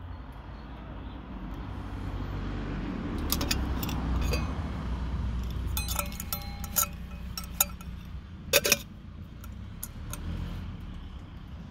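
Stainless steel kettle lid being handled: several sharp metallic clinks, one ringing briefly about six seconds in, the loudest about eight and a half seconds in, over a steady low rumble.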